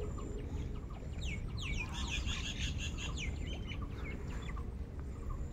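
Small birds chirping: repeated short calls that sweep down in pitch, thickest about two seconds in, over a low steady rumble.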